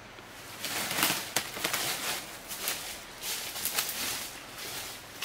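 Footsteps crunching and rustling through thick dry leaf litter, an irregular run of crackling steps at about two a second.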